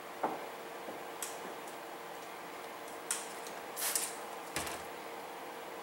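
A few faint, scattered clicks and crinkles of hands handling and smoothing clear paint protection film on a car bumper, over a steady low hiss. The last click, a little past halfway, has a soft thud to it.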